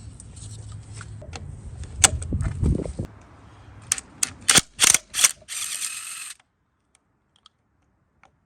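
Ratchet wrench working loose the 1/2-inch nut on a riding mower's steering wheel: a few knocks, then a run of sharp ratchet clicks, followed by a short hiss.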